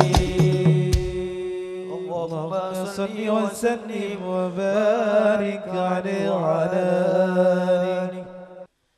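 The last few drum strikes of a sholawat song end about a second in. Then a solo male voice sings a long, ornamented sholawat phrase, its pitch winding up and down over a steady held drone, and it cuts off abruptly near the end.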